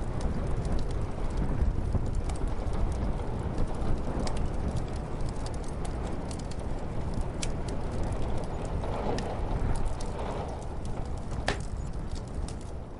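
Muffled snowstorm wind as a steady low rumble, with the scattered pops and crackles of a wood fire burning. One sharper crack stands out near the end.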